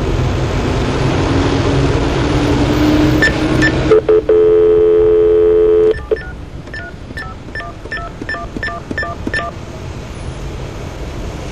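A telephone line hisses and hums for about four seconds. Then a steady dial tone sounds for about two seconds, followed by a quick run of about ten touch-tone (DTMF) key beeps dialing a number.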